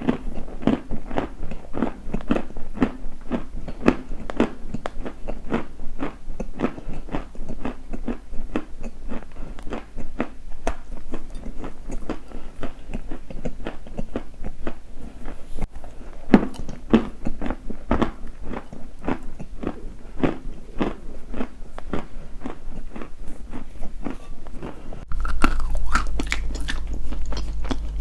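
Close-miked biting and chewing of something crunchy, with rapid, sharp crunches several times a second and a brief pause about halfway. A steady low hum comes in near the end.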